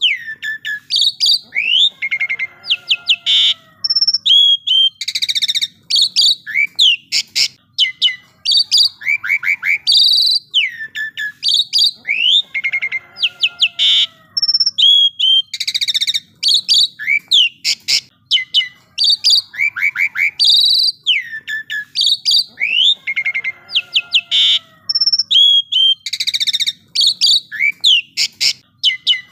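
Asian pied myna (jalak suren) singing loudly and continuously. Its song is a varied run of whistles, rising and falling slurred notes, rapid clicks and harsh buzzy notes. The same phrase sequence repeats about every five seconds, like a looped master recording for training songbirds.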